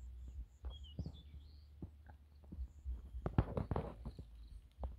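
Footsteps and irregular soft knocks and thumps, busiest about three to four seconds in.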